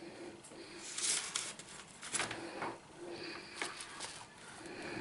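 Handling noises of a coiled power cable and a cardboard box on a desk: a few brief rustles and scrapes, about a second in, after two seconds and again near four seconds.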